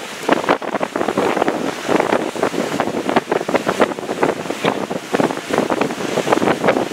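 Wind buffeting the microphone over choppy water, with an irregular crackle of gusts and splashing.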